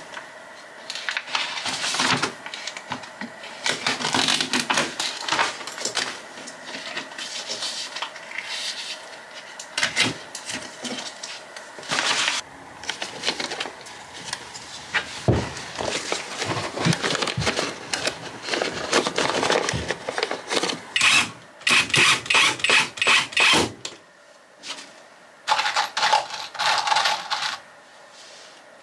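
Rustling and knocking from hands-on floor building: plastic sheeting crinkling and timber and chipboard being handled and set in place. Near the end come quick runs of small metallic clinks, as screws rattle in a small box.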